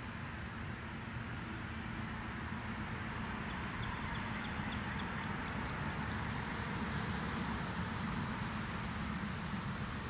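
Outdoor background with the siren silent: a low steady rumble like distant traffic, a thin steady high-pitched whine, and a few faint chirps.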